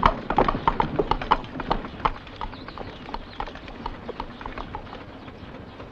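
Horse's hooves clip-clopping at a walk or trot, fading as the horse moves away.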